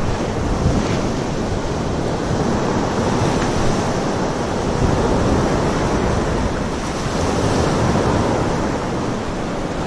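Steady wash of surf on a sandy beach, with wind rumbling on the microphone.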